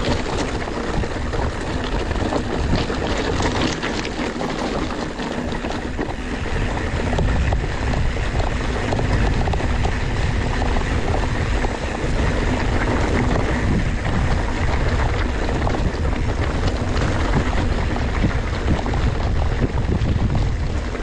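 Mountain bike riding over a steep, rough track of loose stones: tyres crunching on the stones and the bike rattling, with wind buffeting the microphone. The wind rumble grows louder about seven seconds in.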